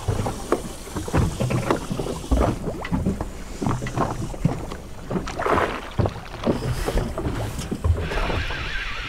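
Irregular knocks, clunks and thumps aboard a small fishing boat over a low background rumble, with a steady hiss coming in near the end.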